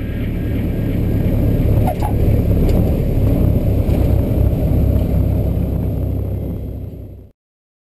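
Small propeller aircraft's engine and rushing air heard inside the cockpit as it rolls along the runway, a loud, steady low rumble with a brief squeal about two seconds in; it cuts off abruptly near the end.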